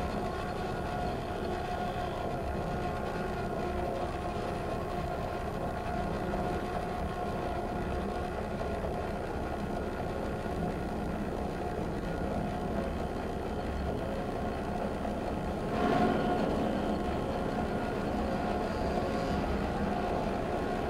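Experimental electroacoustic drone from trumpet, wearable electronics sonifying the player's body signals, and sound objects: a dense, steady rumble with several held tones, swelling briefly louder about sixteen seconds in.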